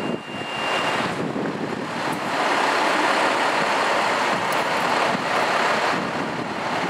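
Steady vehicle rumble and hiss from a fire engine's diesel running in the firehouse bay, mixed with city street traffic; it grows louder about two seconds in.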